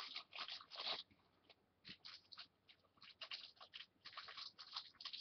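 Faint plastic packaging and parts being handled: short, irregular crinkles and rustles with brief pauses between them.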